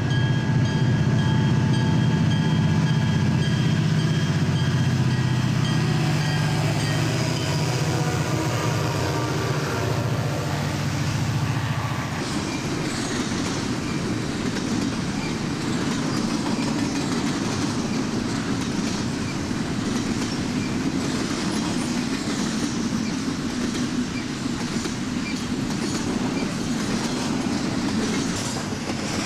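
CP Rail double-stack container freight train passing. For the first dozen seconds the diesel locomotives run with a loud low drone and steady tones. After that the stack cars roll by with a steady rumble of wheels on rail and repeated clicks over the rail joints.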